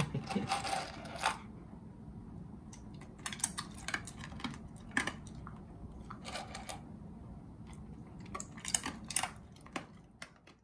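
Standard poodle's mouth sounds after being fed: irregular small wet clicks and smacks of chewing and lip-licking, fading out near the end.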